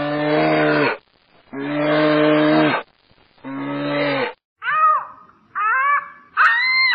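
Cow mooing three times, each low, steady call lasting about a second. From about two-thirds of the way in, another animal gives three shorter, high-pitched calls that rise and fall.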